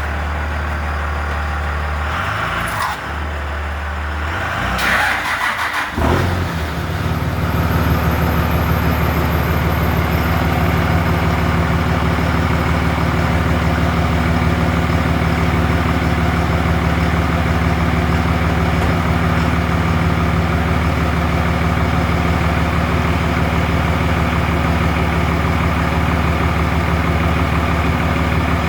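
Pickup truck engine starting about six seconds in after a burst of noise, then idling steadily; a lower engine hum is already running before it.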